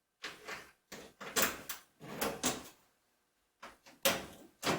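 Key being worked in the lock of a Kennedy steel tool box, making a string of short metallic clicks and rattles, the sharpest about four seconds in.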